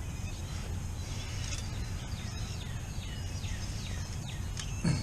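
A bird calling in a series of quick, falling whistled notes over a steady low background rumble.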